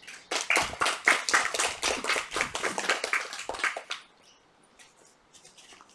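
A small audience claps for about four seconds, then stops fairly suddenly, leaving only a few faint taps.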